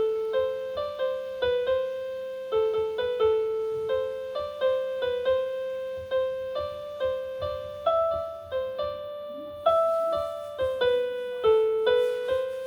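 A simple melody played one note at a time on a piano-type keyboard, about two notes a second, each note struck and fading.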